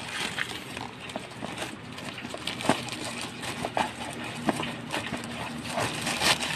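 Plastic packaging bag rustling and crinkling as it is pulled open and handled, with scattered sharp crackles and taps.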